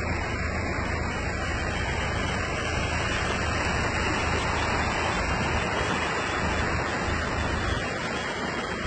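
Steady rush of heavy rain and floodwater running over a flooded street, with a low hum underneath.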